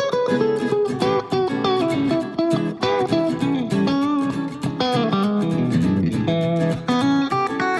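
Background music led by a plucked guitar, with quick picked notes.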